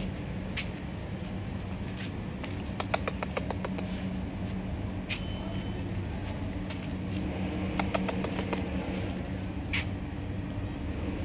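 Steady low mechanical hum throughout, with two quick runs of sharp clicks, one about three seconds in and another about eight seconds in.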